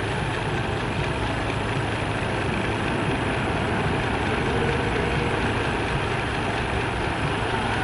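Jet airliner engines heard at a distance: a steady, even rumble.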